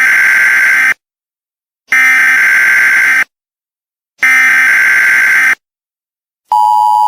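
Emergency Alert System SAME header: three short bursts of digital data tones, each a little over a second long with short silences between. Near the end the steady two-tone EAS attention signal begins, the sign that an alert message is about to be read.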